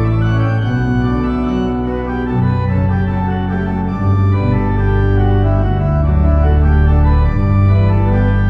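Church organ playing a closing voluntary: full, held chords over deep pedal bass notes that change every second or two.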